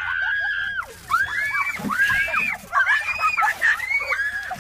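Several young women screaming and shrieking over and over, high-pitched and overlapping, as a cooler of water is tipped over them. One long scream opens it, followed by a string of short shrieks.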